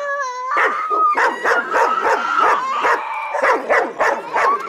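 Dogs barking rapidly and excitedly, several barks a second, with a high whine drawn out at the start and again through the middle.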